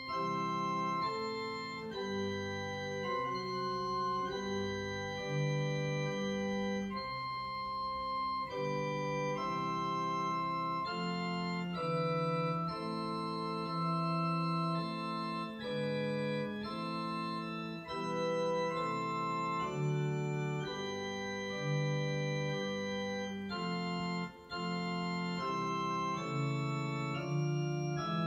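Digital piano played with an organ voice: slow chords, each held steady until the next, changing every second or two.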